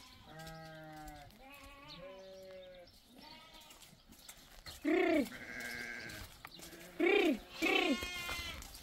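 Sheep bleating again and again, several animals at different pitches, with the loudest bleats about five seconds in and twice more around seven to eight seconds in.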